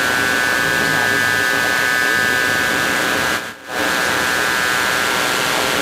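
Loud, dense electronic noise, a steady hiss with a cluster of held high tones, from the performance's live electronic sound; it cuts out abruptly for a moment about three and a half seconds in, then resumes.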